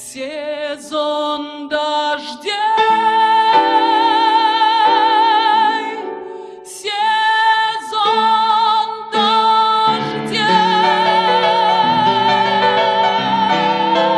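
Music: a woman singing, a few short notes and then two long held notes with wide vibrato, over instrumental accompaniment.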